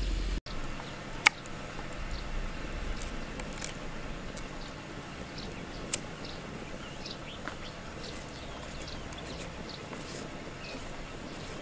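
A knife cutting a carrot against a wooden board, giving a few scattered sharp taps and faint scraping over a steady, quiet outdoor background.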